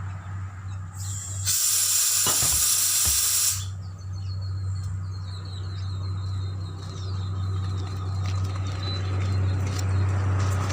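Compressed air hissing in one loud burst of about two seconds, over a steady low hum.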